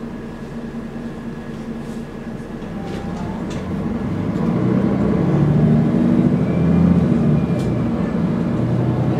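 Engine and drivetrain of a 2005 Mercedes-Benz O530 G articulated city bus with a Voith automatic gearbox, heard from inside the cabin: a steady low drone that grows louder about four seconds in as the bus pulls harder. A few light rattles can be heard over it.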